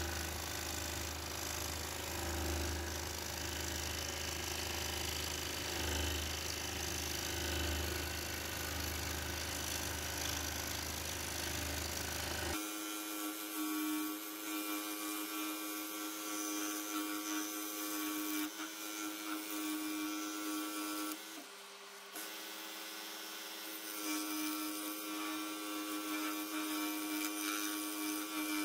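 Pégas 21-inch scroll saw running steadily, its reciprocating fretsaw blade cutting through a wooden tree slice. A low hum under the saw stops abruptly about halfway through. Near the three-quarter mark the saw's tone dips briefly, then comes back.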